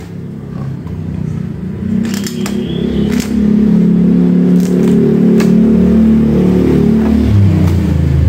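A motor engine running close by, getting louder about two seconds in and dropping in pitch near the end. Over it come a few short sharp sounds as the wet kapok-stuffed mattress ticking is pulled apart by hand.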